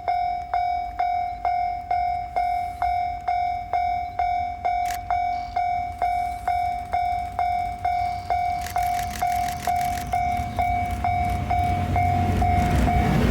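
Japanese railway level-crossing alarm ringing its repeated electronic bell, about two strikes a second. From about two-thirds of the way in, the rumble of an approaching train builds under it and grows louder near the end.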